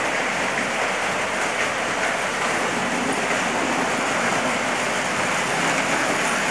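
Toy model train running on its track: a steady rattling whir.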